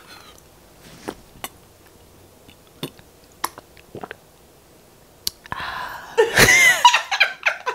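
Close-up mouth sounds of a person drinking from a plastic water bottle, ASMR-style: scattered soft clicks of sips, gulps and lips. About five and a half seconds in comes a loud breathy vocal exhale lasting about two seconds.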